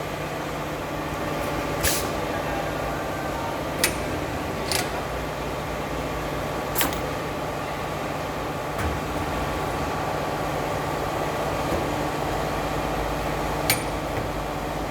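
CNC corner crimping machine for aluminium profiles running through a crimping cycle: a steady machine hum, broken by about six sharp clicks or knocks a second or two apart.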